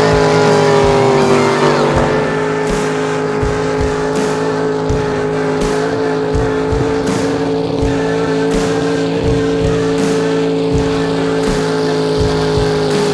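Racing jet boat engine running flat out at high speed, a steady high engine note that drops slightly in pitch about a second in as the boat goes by.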